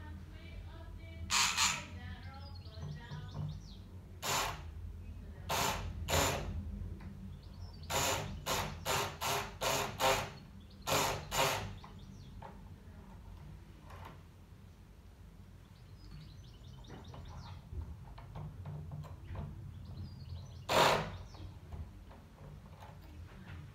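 Lock picks working in the keyway of a euro profile cylinder: short scratchy metal strokes, a quick run of them around the middle and one more near the end, with birds chirping in the background.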